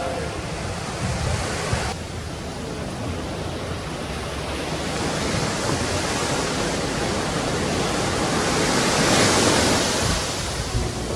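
Ocean surf on a beach: a continuous wash of breaking waves, swelling to a louder surge about nine seconds in and then easing.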